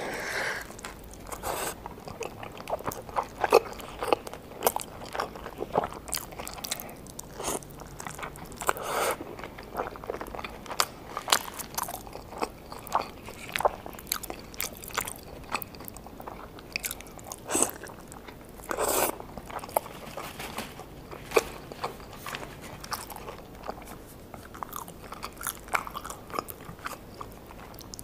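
Close-miked eating of fried birria tacos dipped in consommé: crisp bites through the fried tortillas and irregular crackly, wet chewing throughout.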